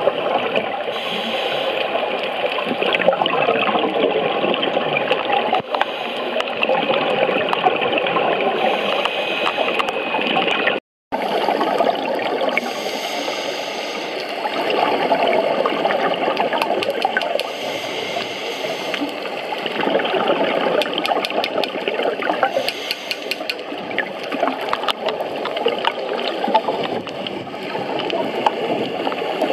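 Scuba diver's exhaled air bubbling and gurgling from the regulator, heard underwater through the camera housing as a continuous muffled churning that swells and fades. The sound drops out for a moment about eleven seconds in.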